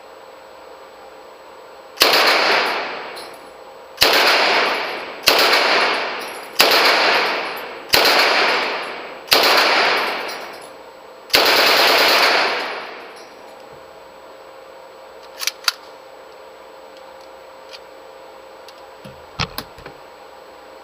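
Sterling 9mm submachine gun firing seven short bursts of automatic fire, each trailing off in an echo; the last burst is the longest. A few faint clicks follow near the end.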